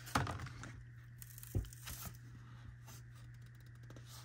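Light rustling and crinkling of an opened Hot Wheels cardboard blister card and its clear plastic bubble being handled, with a tap at the start and a soft thump about one and a half seconds in.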